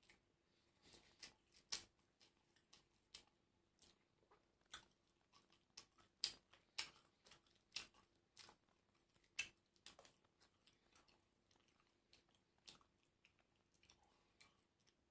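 A person chewing and biting crunchy food close to the microphone: irregular sharp crunches and mouth clicks, about one or two a second, thinning out near the end.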